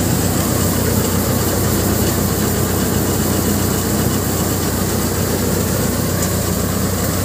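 Mustard thresher machine running steadily under power while threshing mustard, a continuous loud mechanical drone with a low engine hum.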